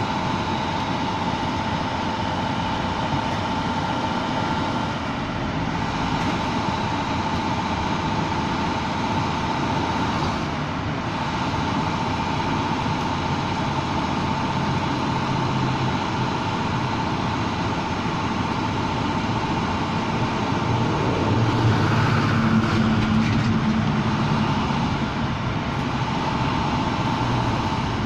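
Old rear-loading garbage truck running at the curb, a steady engine rumble with a constant whine over it. The sound swells for a few seconds about three quarters of the way through.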